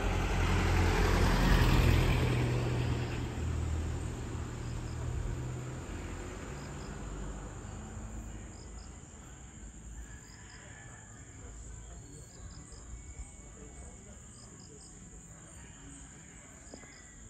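A steady high drone of crickets and other insects, with short clusters of chirps repeating every second or two. A low rumble is loudest about two seconds in and dies away over the first several seconds.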